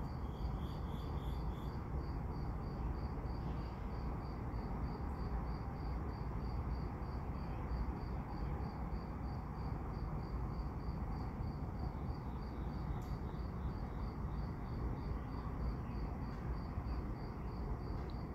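Crickets chirping steadily, about three high chirps a second, over a low steady rumble from the slowly rolling freight train.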